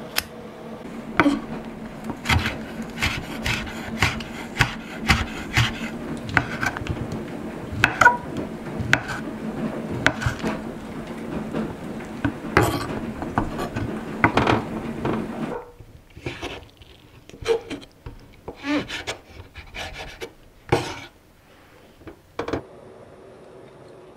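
Kitchen knife chopping on a wooden cutting board: sharp, irregular knocks about one to two a second, over a steady low hum. About two-thirds of the way through the hum stops and the knocks become fewer.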